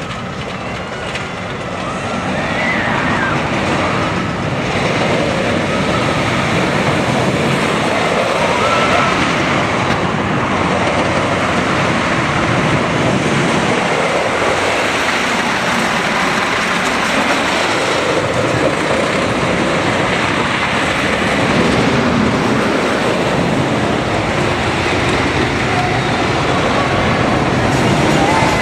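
Wooden roller coaster train (GCI Millennium Flyer) running at speed on its wooden track: a loud, steady rush of wind and rumble of wheels on the track, growing louder about two seconds in.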